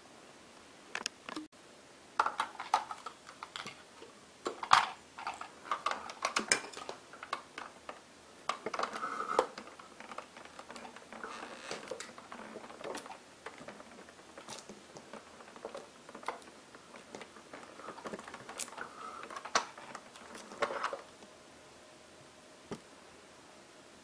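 Hard plastic parts of a Pororo toy vacuum cleaner being handled: irregular clicks, taps and light rattles as the clear plastic tube and hose handle are fitted and the body is touched. The handling stops about three seconds before the end; the toy's motor is not running.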